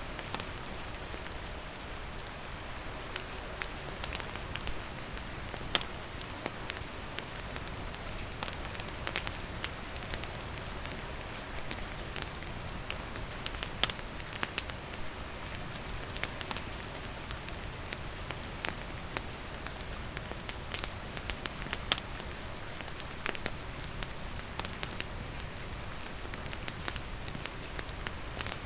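Steady rain falling, with a wood fire crackling: frequent sharp pops and snaps scattered irregularly over the rain's hiss.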